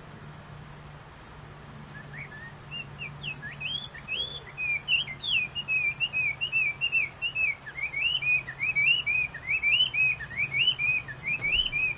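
Chinese hwamei (Garrulax canorus) singing: after about two seconds, a long, rapid, varied run of loud whistled notes with quick rising and falling slurs. A faint steady low hum runs underneath.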